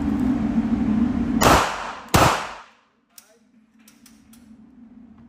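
Two rapid 9mm pistol shots from a Glock 48, about two-thirds of a second apart, each cracking sharply and ringing out briefly.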